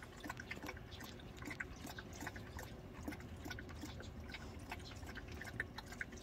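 A dog lapping a liquid meal of milk mixed with seaweed soup from a plastic bowl: rapid, irregular wet tongue clicks and slurps.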